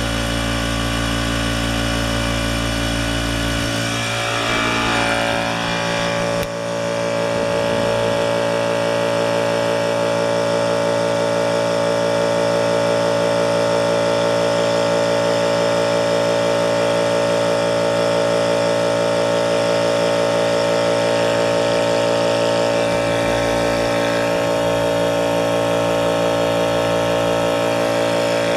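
DeWalt 4-gallon air compressor motor and pump running steadily as it builds tank pressure, then shutting off at the very end as it reaches cut-out pressure.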